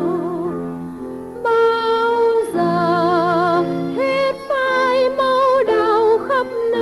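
Song recording with accompaniment: a melody of held notes with wide vibrato over steady sustained lower notes, dipping briefly and coming back louder about a second and a half in.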